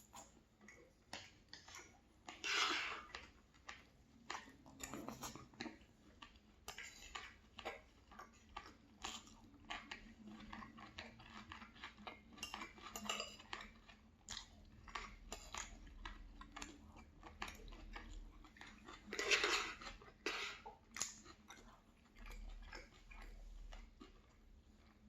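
Cutlery clinking and scraping on a plate, with chewing, in many short irregular clicks. There are two louder, longer scrapes, one about two and a half seconds in and one near the end.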